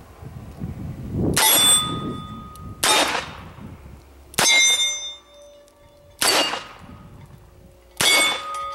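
Five .38 Special shots fired double action from a Smith & Wesson Model 10 revolver, about one every one and a half seconds. Most are followed by the ringing clang of a struck steel plate target.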